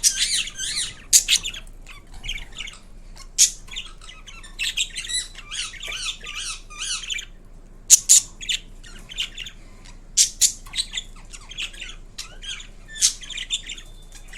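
Indian ringneck parakeet calling: bursts of rapid high chattering and chirps broken by sharp, loud squawks every few seconds.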